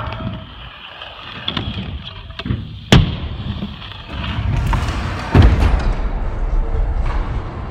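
Stunt scooter wheels rolling on wooden skatepark ramps, with two sharp landing impacts, one about three seconds in and one about two-thirds through.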